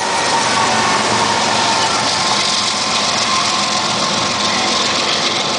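BNSF GE ES44 diesel-electric locomotives passing close by, their diesel engines running under steady wheel-on-rail noise.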